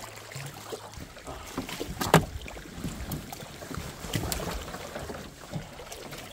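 Canoe being paddled on open water: irregular paddle strokes and water splashing against the hull, with wind on the microphone. A sharp knock about two seconds in is the loudest sound.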